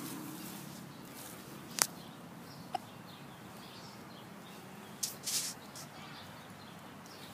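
Quiet outdoor ambience with faint bird chirps, two sharp clicks about two and three seconds in, and a short rustle about five seconds in.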